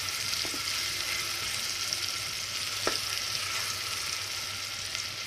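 Chopped onions sizzling in hot oil in a metal pot while being stirred with a spoon, with a couple of light clicks of the spoon against the pot about half a second and three seconds in.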